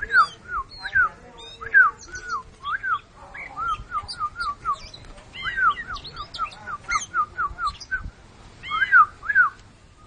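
Oriental magpie-robin (kacer) singing in its cage: a string of clear falling whistled notes, one or two a second, that breaks into a quicker run of short notes about halfway through, with higher twittering notes above.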